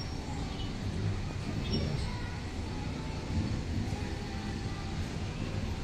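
Steady low outdoor rumble with no sudden events.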